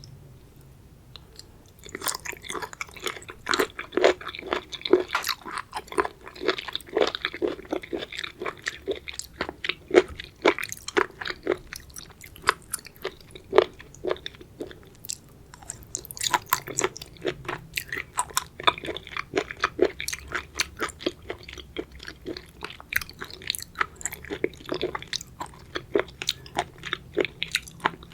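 Close-miked chewing and biting of seafood: a dense run of crunchy, wet chewing clicks that starts about two seconds in.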